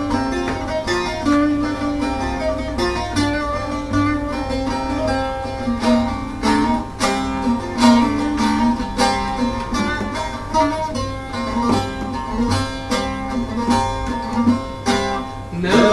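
Instrumental music led by a plucked string instrument picking a melody of short notes, over a low steady bass.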